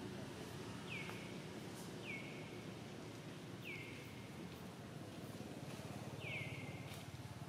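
A bird repeatedly gives a short whistled call that slides down in pitch, about four times at uneven intervals, over a steady low hum of outdoor background noise.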